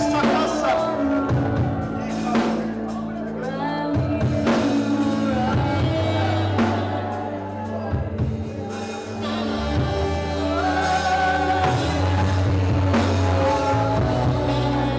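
A church worship band playing live, with singing, drums and held bass notes that change every few seconds.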